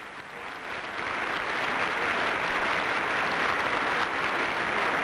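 A large audience applauding, the clapping swelling over the first second or so and then holding steady.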